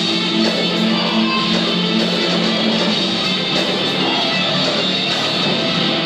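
Heavy metal band playing live, with electric guitar to the fore. The sound is dense and steady, with thin bass, as recorded on a camcorder from across the hall.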